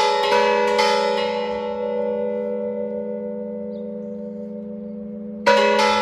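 Hanging mission bells rung by hand with ropes from below: quick repeated clangs in the first second, then the bells hum and fade for several seconds with no new strikes, until a loud strike about five and a half seconds in sets them clanging rapidly again.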